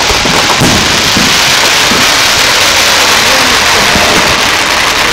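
Aerial fireworks bursting overhead: a loud, continuous hiss with a few low booms underneath, one about half a second in.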